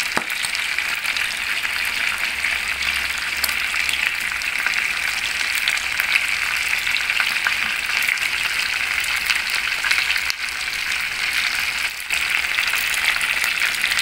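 Chicken quarter legs frying in hot oil in a pan: a steady sizzling hiss with constant small crackles and pops.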